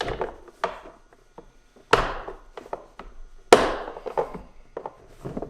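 Hard plastic tool box parts knocking and clunking as they are handled and fitted together during assembly. Two loud knocks come about 2 and 3.5 seconds in, with lighter clicks and taps between.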